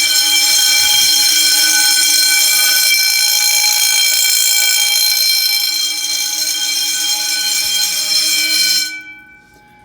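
Fire alarm system in alarm: the horns sound together as one loud, steady, unbroken tone that cuts off suddenly about nine seconds in.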